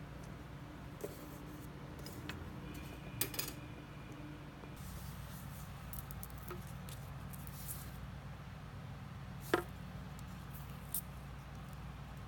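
Steady low hum of room noise with a few faint clicks and taps from hands handling a small fishing hook and line. A cluster of clicks comes about three seconds in and a sharper one late on.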